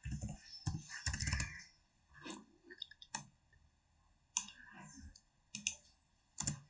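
Computer keyboard and mouse clicking: a quick run of key presses about a second in, then single clicks spaced about a second apart.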